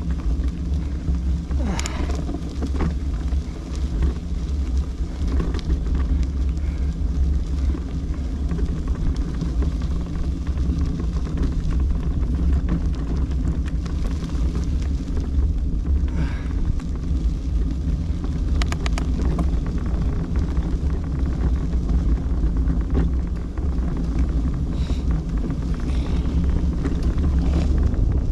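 Steady low rumble of wind buffeting the microphone, with a few faint short clicks.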